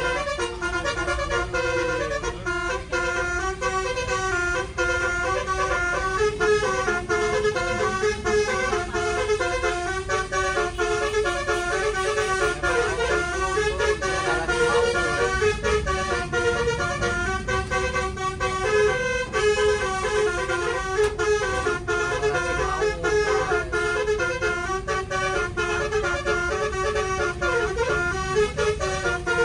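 Basuri telolet bus horn, a module driving twelve roof-mounted air horns, playing a melody in quickly changing notes throughout, with the bus's low rumble underneath.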